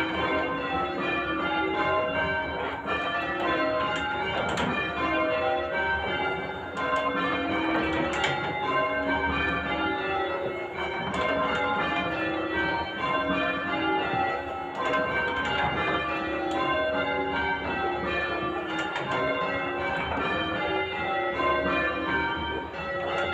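Church tower bells being change-rung: a steady stream of overlapping bell strikes, each ringing on, with the bells sounding one after another in changing order.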